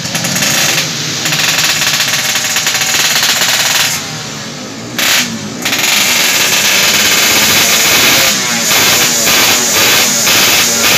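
Yamaha RX-King's two-stroke single-cylinder engine, tuned out to 140cc for racing, running with rapid firing pulses while the throttle is worked, the revs rising and falling. It drops off for about a second around four seconds in, then picks up again.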